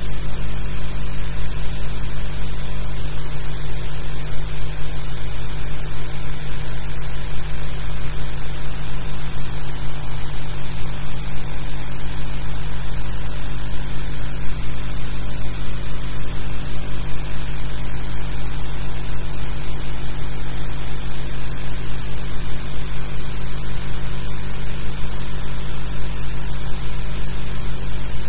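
Steady electrical hum and hiss with no other sound, typical of the noise on an old film soundtrack transfer.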